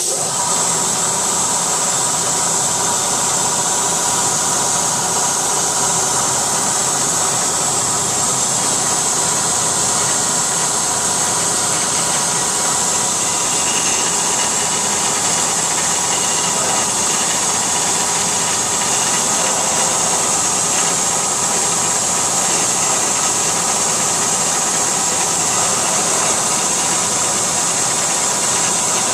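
CNC milling machine running steadily while machining an aluminum bar: a loud, even hiss with a steady whine from the spindle.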